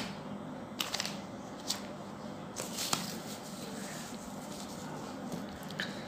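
Soft handling noises: a few faint clicks and a brief rustle about halfway through, as small electronic components are picked up and moved about by hand.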